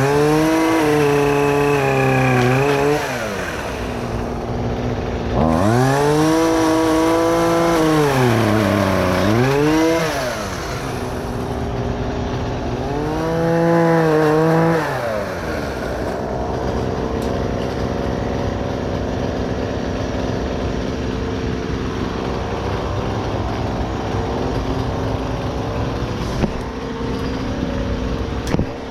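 A small gasoline engine revving three times, each rev rising in pitch, holding and dropping back, then running steadily at a lower idle for the rest.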